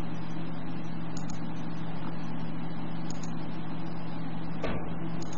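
Steady low hum with hiss under it, a constant background noise on the recording. There is a single sharp click near the end.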